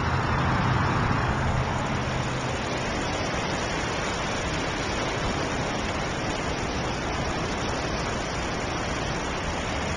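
Steady hiss of ocean surf breaking and washing up the shore, a little louder in the first couple of seconds.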